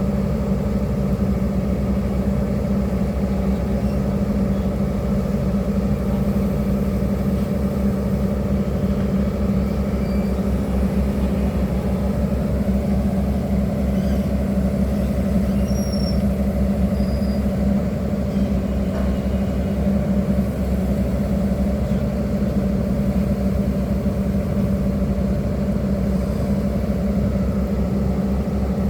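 Excavator's diesel engine running steadily at an even speed.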